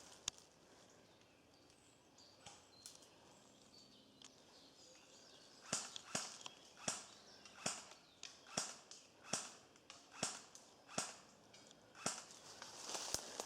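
Footsteps crunching through dry forest leaf litter, starting about six seconds in at a steady walking pace of roughly one step every 0.8 s, with rustling toward the end. A single sharp click comes just after the start.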